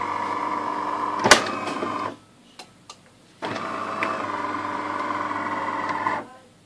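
De'Longhi Magnifica automatic espresso machine's water pump running with a steady hum during its heat-up cycle. It stops about two seconds in, starts again about a second and a half later and runs until shortly before the end. A sharp click comes about a second in.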